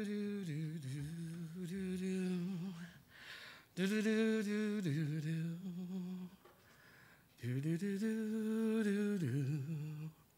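A lone voice sings a wordless, hummed melody in three unaccompanied phrases with short pauses between them. Each phrase holds a higher note and then drops to a lower one.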